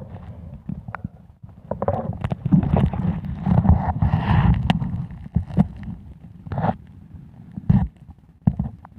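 Muffled underwater sound from a camera submerged in murky river water: dense low rumbling of moving water, heaviest in the middle, with scattered knocks and clicks.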